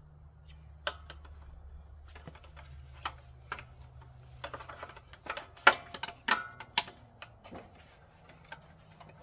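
Hard plastic clicking and knocking as a lawn tractor bagger's upper chute support is worked into its clips on the mounting brackets: a scattered run of taps, with the loudest sharp clicks a little past halfway, over a faint low hum.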